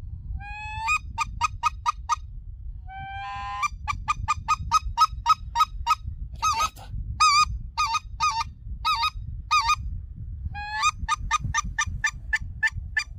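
Goose honking in four runs. Each run opens with a drawn-out rising note, followed by a quick regular series of short honks, about four or five a second.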